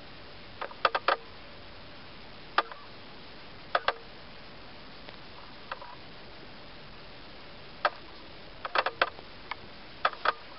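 Small sharp clicks of fingernails against a hard plastic toy dog figure as it is turned in the fingers, coming in scattered clusters of one to three over a steady faint hiss.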